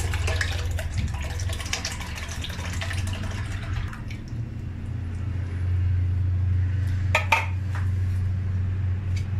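Milk poured into a stainless steel pan of coconut milk, splashing and trickling for about four seconds before it stops. Then a steady low hum, with a brief clatter about seven seconds in.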